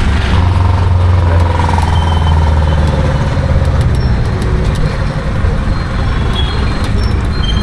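Busy city road traffic heard from a moving vehicle: a loud, steady low engine-and-road rumble, with short high horn beeps from other traffic in the second half.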